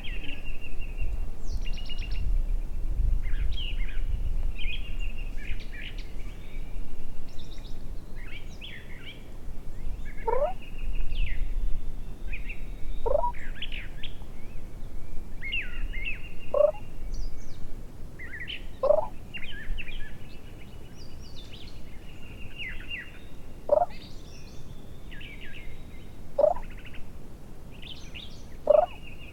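Songbirds chirping and trilling throughout, with short falling turkey calls repeated about every two and a half to three seconds from about ten seconds in. A low rumble of wind on the microphone runs under the first half.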